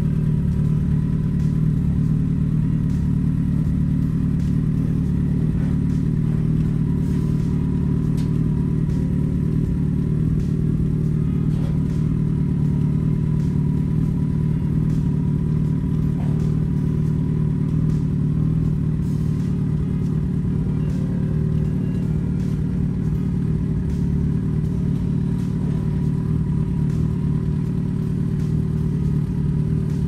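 A vehicle engine idling steadily: an even low hum that does not change, with a few faint clicks and knocks over it.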